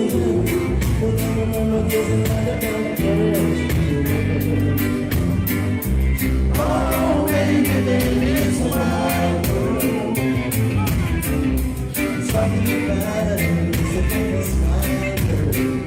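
Live reggae band playing with a steady offbeat rhythm and heavy bass, with a singer's voice over it.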